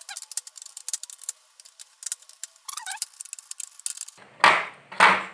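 Cordless drill-driver tightening screws into a plastic speaker-box front panel, giving a rapid, irregular clicking. Two louder knocks come near the end. The screws are being tightened because a loose panel was making the speaker buzz.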